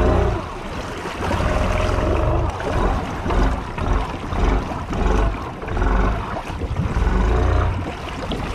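Honda Rancher ATV engine running and revving up and down as it pushes through deep water, with water splashing and churning around the machine.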